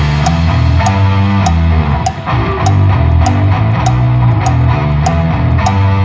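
Background rock music with distorted electric guitar and drums, a steady beat of about one drum hit every 0.6 seconds.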